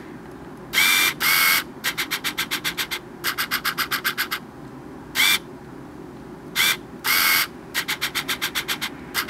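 Video camera's autofocus lens motor hunting without locking focus: runs of rapid ticking at about ten ticks a second alternate with short buzzing whirs, starting and stopping again and again.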